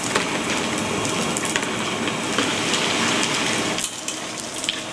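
Hot oil in a wok sizzling and crackling hard around rice being crisp-fried, as a wire mesh strainer of the rice is lifted out and drains back into the pan. The sizzle drops off sharply about four seconds in.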